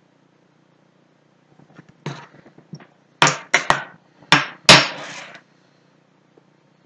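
A metal spoon and plastic tube being handled and set down on a hard surface: a run of about six sharp knocks and clatters, starting about two seconds in. The loudest knock comes near the middle, with a short rattle after it.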